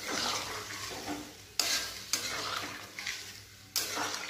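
A steel spatula stirring potato curry in a metal kadai, scraping through the gravy in a few strokes, each starting with a sudden louder scrape, while the gravy sizzles.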